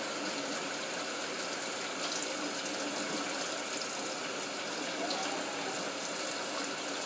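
Kitchen tap running steadily into a sink while fresh-laid eggs are rinsed under it.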